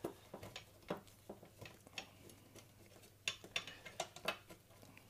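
Faint scattered clicks and light taps of small hardware handled against a thin aluminium chassis, as insulating bushings are pushed onto the TO-3 transistor mounting screws, with a closer run of clicks about three to four seconds in.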